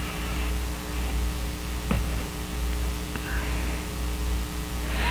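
Steady electrical mains hum with a low hiss, with a couple of faint short clicks about two and three seconds in.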